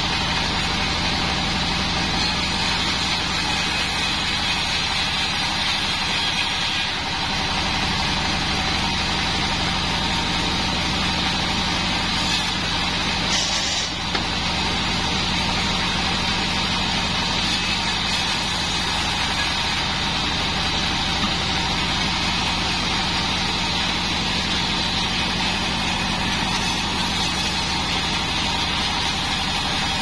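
Bandsaw mill running steadily, its blade sawing planks of Bayur wood as they are fed through.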